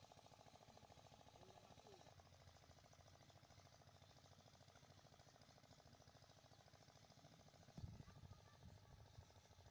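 Near silence with a faint, fast, steady pulsing of a distant engine running; a soft low thump about eight seconds in.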